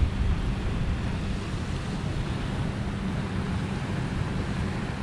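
Wind buffeting the microphone in a steady low rumble, with waves washing in the background.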